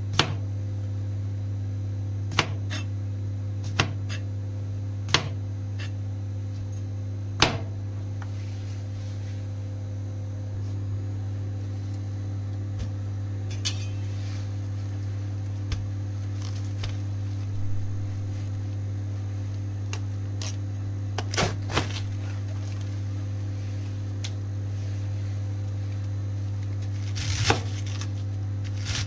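Large kitchen knife cutting cucumber and then cabbage on a plastic cutting board: a dozen or so sharp, irregularly spaced knocks of the blade on the board, over a steady low electrical hum.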